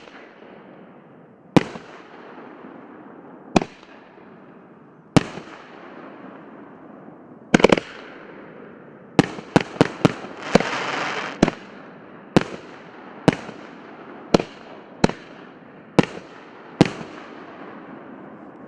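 A multi-shot fireworks cake (a 25-shot battery) firing shell after shell, each one a sharp bang with a rumbling tail. The bangs come every second or two at first, then quicken into a rapid run, with a dense hissing crackle lasting about a second just past the middle.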